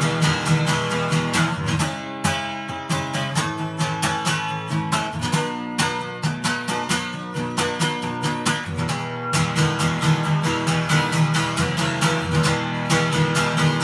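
Acoustic guitar strummed in a fast, even rhythm, ringing chords that change every few seconds.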